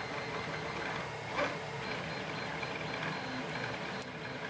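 Printers running steadily in the background, a continuous mechanical whirring hum. A sharp click sounds about a second and a half in and another near the end.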